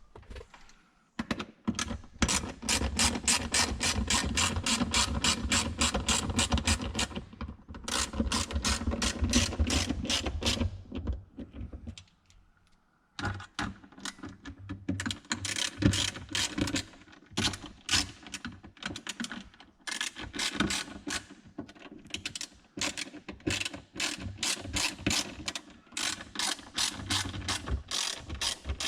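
Hand ratchet wrench clicking in long runs, about four clicks a second, as fasteners are turned, with a short pause a little before halfway.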